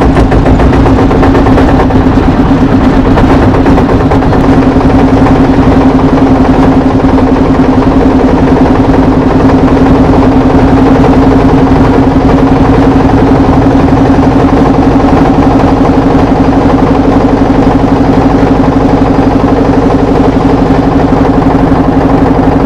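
Motorboat engine running steadily under way, a loud, even drone with one steady low hum that does not change.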